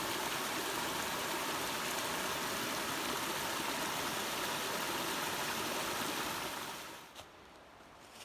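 Small river spilling over a little waterfall: a steady rush of water that dies away quickly about seven seconds in, leaving a few faint clicks.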